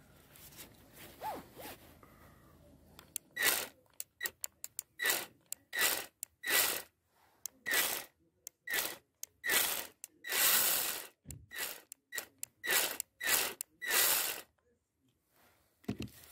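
Worx WG324E 20 V cordless mini pruning chainsaw run in about twenty short trigger blips: the electric motor whines and the chain rattles round the bar for a fraction of a second each time, the longest about a second. A click near the end.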